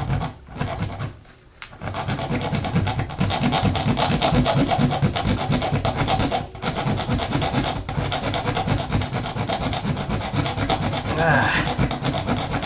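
Bare hacksaw blade held in the hand, rasping through a nail inside a wall cavity in rapid short back-and-forth strokes as it cuts a plastic electrical box free of the stud. The steady sawing starts about two seconds in and stops briefly near the middle.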